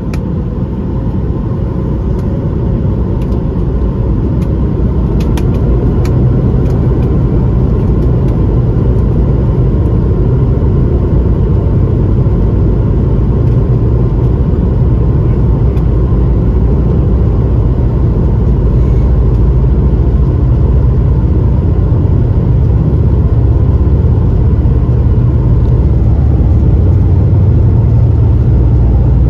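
Airbus A220-300's Pratt & Whitney PW1500G turbofan engines at takeoff power, heard from inside the cabin beside the engine, with a deep rumble that builds over the first few seconds of the takeoff roll and then holds steady.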